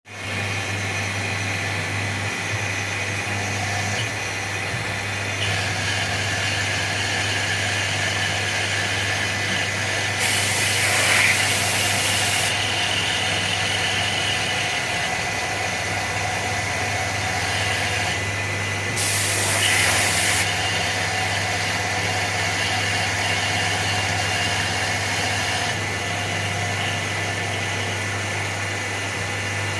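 Maho CNC milling machine running as it mills into a brake disc: a steady low hum with a high, steady spindle whine. Two bursts of hiss, about ten seconds in and again near twenty seconds, each lasting one to two seconds.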